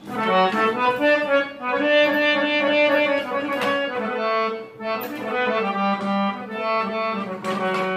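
Hand-pumped harmonium playing a slow melody of held reed notes over a sustained low note, with a short break about halfway through.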